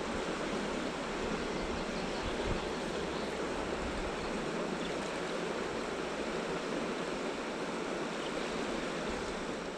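River water running steadily over a shallow, rippled stretch: an even rushing.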